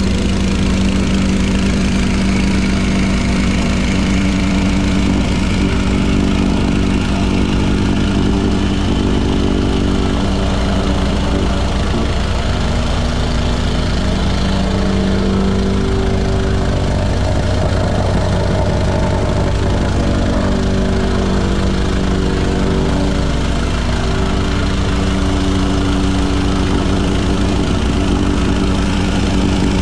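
Engine of site machinery running steadily under light work, its pitch shifting a little around the middle.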